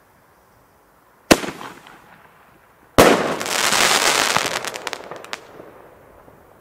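Panda Festival Bombenrohr 30 mm bomb tube firing: a sharp launch bang, then about a second and a half later a louder burst as the shell breaks in the air. A dense crackle follows the burst and fades out over about two and a half seconds.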